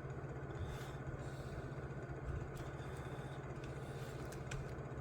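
A steady low machine hum with a few faint, light clicks.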